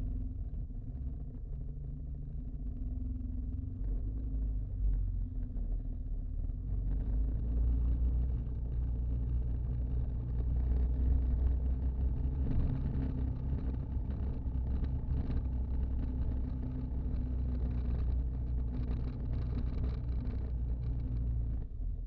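Yamaha Rhino 700 FI side-by-side's single-cylinder engine running steadily at low speed as it wades through a deep river ford, with water rushing and splashing around the vehicle from about seven seconds in.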